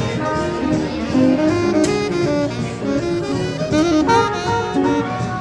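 Live jazz band playing, with a horn carrying the melody over an upright double bass.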